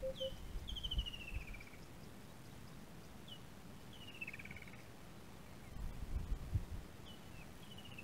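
A bird sings three times, about every three and a half seconds: a short high note followed by a falling trill. Under it are low, irregular thumps and rustling.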